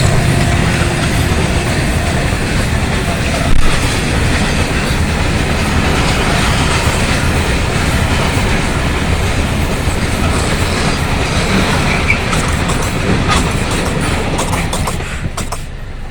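Freight train wagons rolling past, a steady rumble and clatter of steel wheels on the rails. There is a sharp knock about three and a half seconds in, scattered clicks later on, and the sound fades near the end as the train passes.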